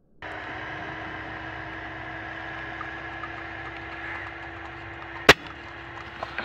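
Air rifle firing once: a single sharp crack about five seconds in, over a steady background hum with one low tone. A few quick clicks follow near the end.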